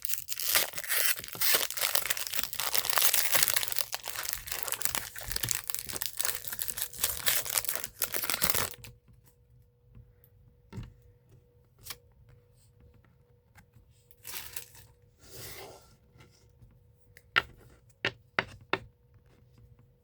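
A foil Pokémon booster pack wrapper being torn open and crinkled for about nine seconds, then quieter scattered rustles and a few sharp clicks as the cards are handled.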